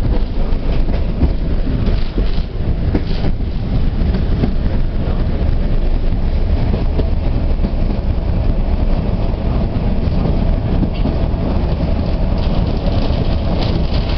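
Tram running along the track, heard from on board: a steady low rumble of wheels on rails, with occasional clicks.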